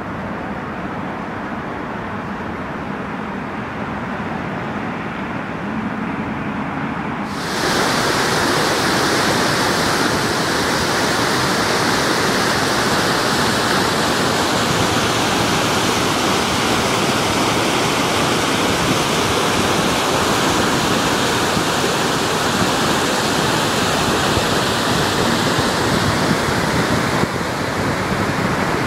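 Floodwater rushing over a lake's concrete spillway after heavy rain, a steady noise of falling, churning water. At first it is duller and more distant, and about seven and a half seconds in it turns abruptly louder and brighter, the close rush of water pouring over the weir.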